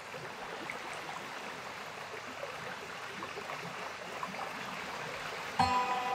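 Intro sound bed of a steady rushing hiss. About five and a half seconds in, a sudden struck note cuts in and rings on as a chord of steady tones.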